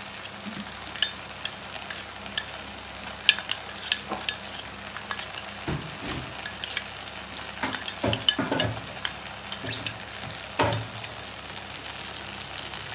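A spoon stirring cornflour-and-water slurry in a small bowl, with scattered light clicks and a few louder knocks of the spoon against the bowl, over a steady frying sizzle from the kadai.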